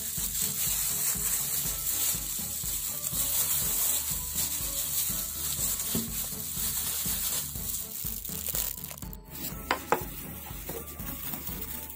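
Plastic-gloved hands kneading small balls of yeast dough on a floured, plastic-wrapped board: a soft rustling and rubbing over a steady hiss.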